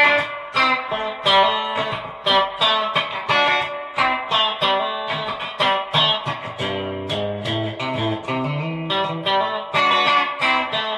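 Fender Player Series Stratocaster electric guitar played through its bridge single-coil pickup with a clean tone: a continuous run of picked notes and chords, dipping into lower notes about six seconds in.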